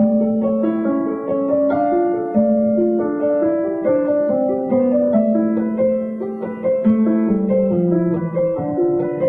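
Background piano music: a gentle melody of held notes over slow-changing bass notes.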